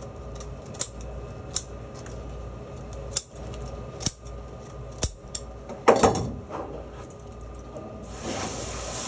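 Fish being cleaned with a knife on a board: sharp clicks and knocks about once a second, a louder clatter about six seconds in, and a hissing scrape near the end as the hard scales are worked off.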